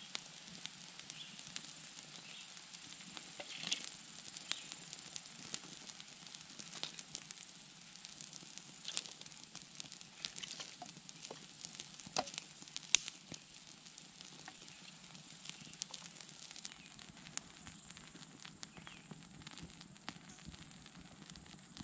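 Small campfire of dry sticks crackling, with irregular sharp pops and snaps throughout; one loud pop about thirteen seconds in.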